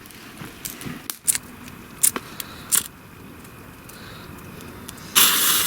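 A few sharp clicks, then about five seconds in a firework's fuse catches and starts a loud, steady hiss.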